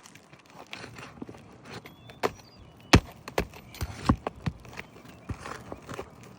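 Irregular knocks and scrapes of a hand tool worked under asphalt shingles to pull out roofing nails, the loudest sharp knock about three seconds in, followed by several more over the next two seconds.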